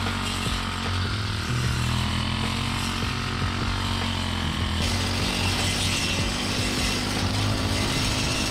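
Backpack brush cutter engine running steadily while its blade cuts grass. About five seconds in, the sound changes abruptly to a closer, brighter, rattling cutting noise.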